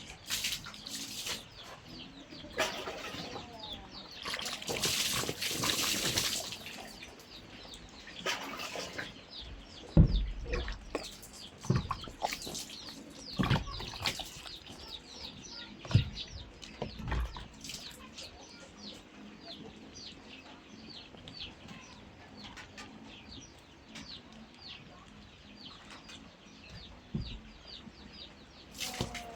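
Birds chirping in many quick, short calls throughout, with a few seconds of rustling noise a few seconds in and several dull thumps around the middle.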